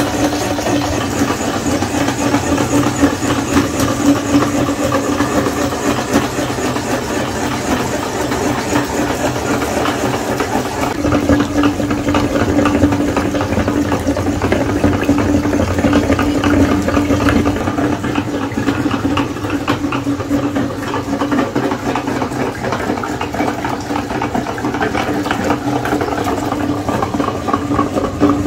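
Motor-driven cast-aluminium meat grinder running steadily with a constant hum, its auger turning and pressing jelly through the cutting plate.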